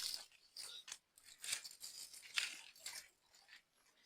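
Dry bamboo leaves and twigs rustling and crackling in several short, irregular bursts.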